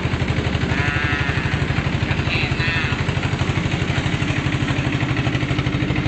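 Small river boat's engine running steadily under way, with an even, rapid pulsing beat.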